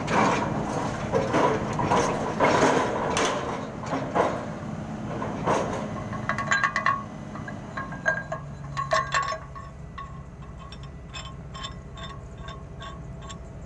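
Rotary drilling rig's engine running with loud irregular mechanical clatter; from about halfway, a run of sharp, ringing metal-on-metal clinks and taps as the steel pin and fittings on the drilling bucket are knocked and worked by hand.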